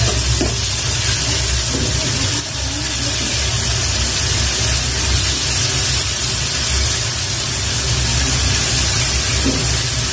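Onion and spice masala frying in mustard oil in a pan, a steady sizzle with a spatula stirring through it, at the stage where the raw ginger-garlic paste is being cooked out.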